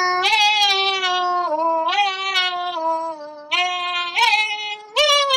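A high voice singing long wordless notes, each held about a second, sliding up and down in pitch between them, as a mock-advert jingle.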